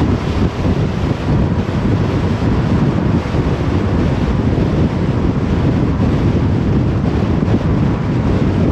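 A car driving at motorway speed: a steady rush of tyre roar and wind noise.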